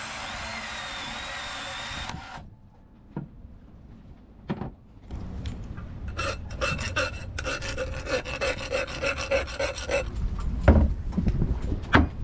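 A Milwaukee cordless power tool runs against a stainless steel pipe and stops about two seconds in. After a short pause, a hand file scrapes back and forth along the stainless pipe in quick strokes, roughening the steel. A few heavy knocks come near the end as the pipe is handled.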